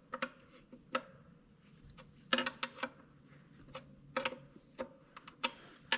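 Scattered light metallic clicks and taps, about a dozen at irregular intervals with a small cluster a little past two seconds in, from hand work with tools on the small compression fitting of a tractor's ether-start line.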